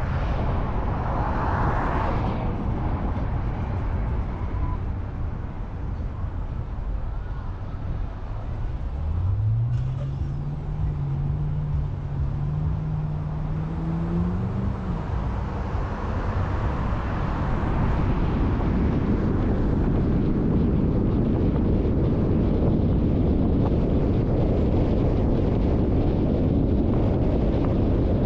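Car driving on a city street: steady road and tyre noise, with an engine note that rises in pitch about a third of the way in, holds for several seconds as a vehicle accelerates, then fades.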